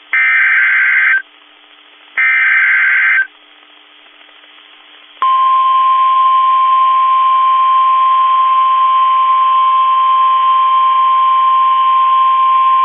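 NOAA Weather Radio Emergency Alert System signal: two loud, harsh SAME data header bursts about a second each, a short pause, then about five seconds in the steady 1050 Hz Weather Radio warning alarm tone starts and holds. The signal announces a new alert, here a tornado warning.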